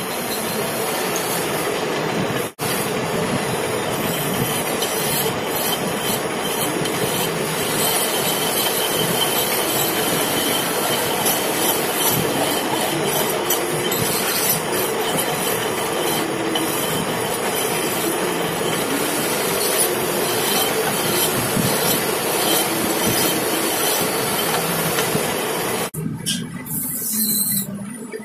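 Metal lathe running, with a steady, rough noise of steel being worked on the turning hydraulic cylinder piston. There is a momentary break about two and a half seconds in, and the noise drops away about two seconds before the end.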